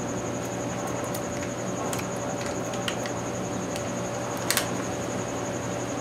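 Steady background hum with a high pulsing whine, broken by a few light clicks and a sharper double click about four and a half seconds in.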